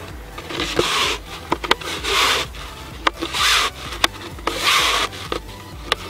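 Nylon stocking being pulled and worked over a cut-down plastic PET bottle: four rubbing swishes, about one every second and a half, with sharp clicks between them.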